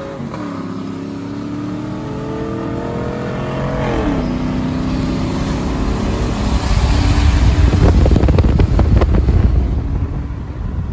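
GM V8 pickup engines at full throttle in a side-by-side pull. The engine pitch climbs, drops about four seconds in as the automatic transmission upshifts, then climbs again. Past the middle, heavy wind buffeting on the microphone rises over the engines and is the loudest part.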